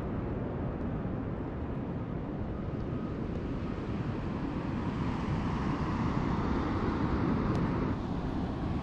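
Steady wind rumble on the microphone, an even noise without distinct events.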